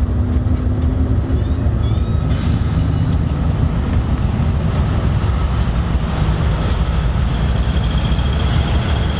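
Diesel-electric freight locomotives passing on an elevated track, with a steady low engine rumble. A thin high whine comes in near the end.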